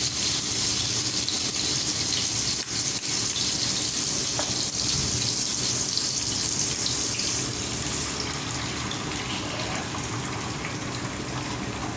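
Steady hissing of garlic and dried anchovies frying in oil in a pan, mixed with the noise of heavy rain outside. The highest part of the hiss drops away about eight seconds in.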